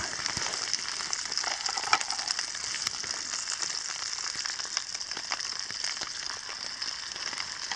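Minced meat and onions sizzling steadily in a frying pan over a small wood-burning stove, with a wooden spoon scraping and pushing the meat around now and then.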